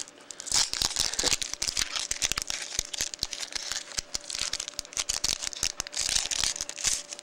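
Foil wrapper of a Bowman Chrome baseball card pack crinkling and tearing as it is ripped open by hand, a dense, irregular run of crackles and rustles.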